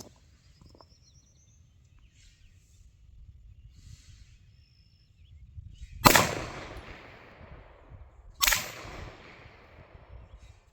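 Two gunshots about two and a half seconds apart, each followed by a long, fading echo.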